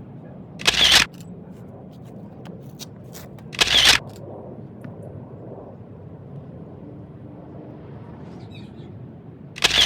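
Canon Rebel T6 DSLR's mirror and shutter firing three times: about a second in, about four seconds in, and near the end.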